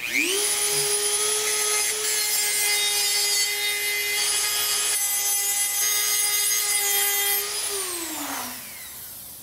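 Dremel rotary tool spinning up, then running at steady speed with a high whine while its bit grinds the powder coat off the mounting holes of a steel scooter frame, down to bare metal. Near the end the motor is switched off and winds down.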